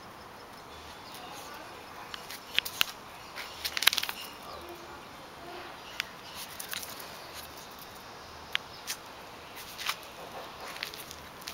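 A chihuahua eating from a bowl and stepping about on concrete: scattered sharp clicks and small taps, clustered about three to four seconds in, with single clicks after.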